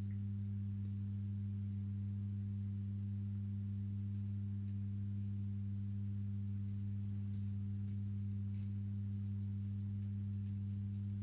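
Steady low electrical hum, one deep tone with a second an octave above, unchanging throughout. A few faint light ticks come in the second half.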